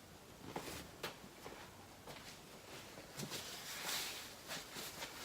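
Faint handling noises in a quiet room: a few soft clicks and taps, with a brief soft rustle about four seconds in.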